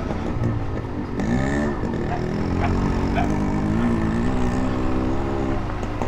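KTM 390 Adventure's single-cylinder engine running as the bike is ridden. The engine revs up and back down about a second in, then holds a steady note that climbs slowly.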